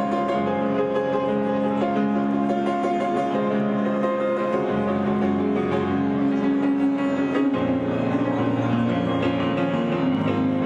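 Instrumental background music with long held notes; a deeper bass line comes in about seven and a half seconds in.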